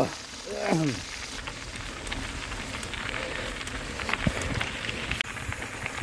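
Mountain bike rolling down a dirt and gravel trail: an even crackly hiss of tyres over loose ground with scattered sharp clicks. A short falling vocal call sounds about half a second in.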